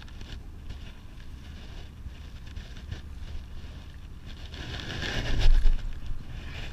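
Wind rumbling on an action camera's microphone. About five seconds in there is a louder burst of rustling and a bump as the camera is handled.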